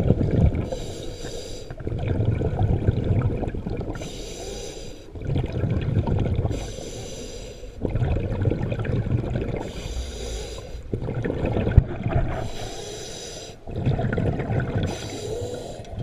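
Scuba diver breathing through a regulator underwater: about six breaths in a steady rhythm, each a short hissing inhale through the demand valve followed by the low bubbling rumble of the exhaled air.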